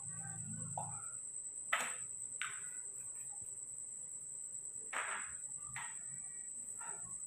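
Steady high-pitched drone of night insects, with five short scraping noises from plastic milk bottles and cups being handled.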